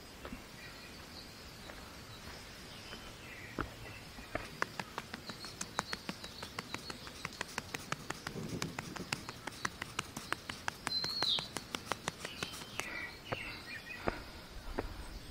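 A hiker climbing timber trail steps: a run of sharp taps and clicks, about three or four a second, starting about four seconds in and thinning out near the end. A bird chirps a few times.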